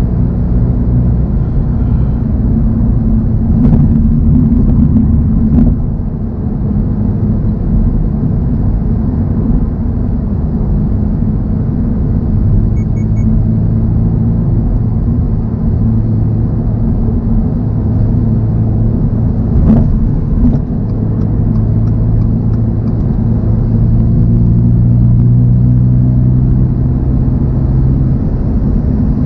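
A 2024 Toyota GR86's flat-four engine running on the move, with road noise; its pitch climbs slowly through the second half as it gathers speed. A few brief knocks cut through.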